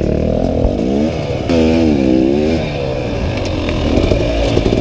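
Dirt bike engine revving hard under throttle, its pitch rising and falling again and again, heard from on the bike.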